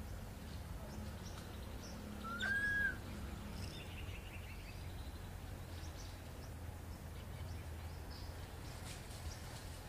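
A single short animal call about two and a half seconds in, rising and then holding its pitch for about half a second, over a steady low hum with faint, scattered high chirps.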